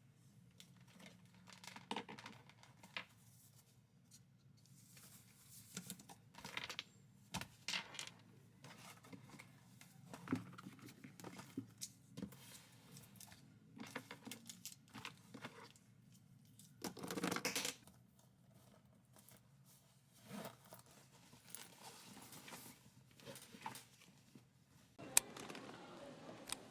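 Quiet handling noise: scattered small clicks and rustles, with a longer rustle about seventeen seconds in.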